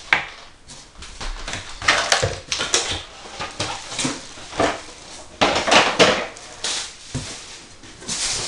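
Clear plastic packaging crinkling and cardboard box inserts rustling and scraping as they are handled, in irregular bursts with a few sharp knocks.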